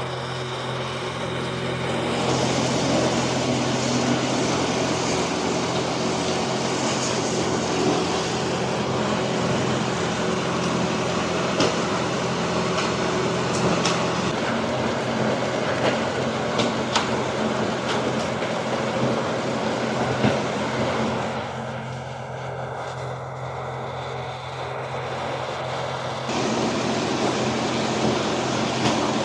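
Rush of strong, blower-driven wind at about 30 m/s over a trekking pole tent, with a steady low motor hum underneath and the nylon flysheet flapping and snapping. The rush eases for a few seconds about three quarters of the way through, then comes back.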